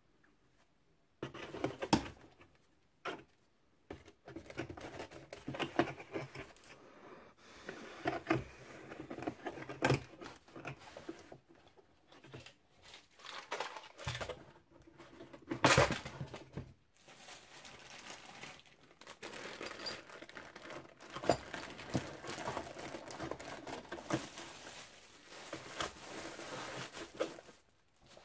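Wooden strips and bagged parts of a model ship kit being packed back into a cardboard box: irregular knocks of wood on cardboard and the crinkle of plastic bags, with one louder knock a little past halfway.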